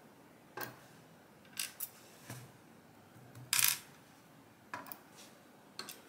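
Light metal clicks and taps of steel tweezers working pins out of an ASSA Twin V-10 lock cylinder, scattered about once a second, with a louder short rattle about three and a half seconds in.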